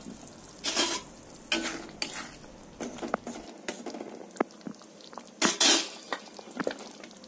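A spoon stirring thick gravy in a stainless steel pan, in several short scraping strokes with small clinks of metal on the pan between them.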